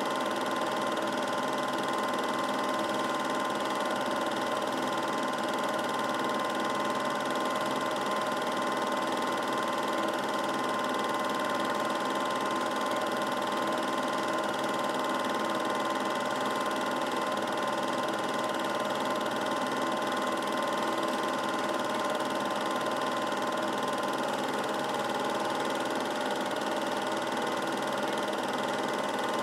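Steady mechanical whir of a film projector running, with a constant thin whine near 1 kHz over an even hiss that does not change at all.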